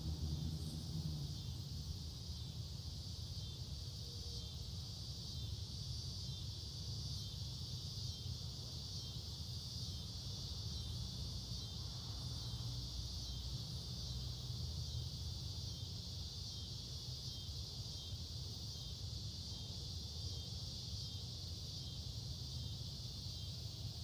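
Faint evening insect chorus, a steady high-pitched trill, over a low steady rumble. A low hum fades out in the first second or so.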